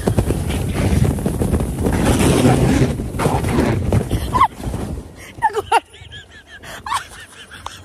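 Loud rushing noise of air buffeting the microphone, heavy in the low end. It drops away about five seconds in, leaving a few short, high-pitched voice calls.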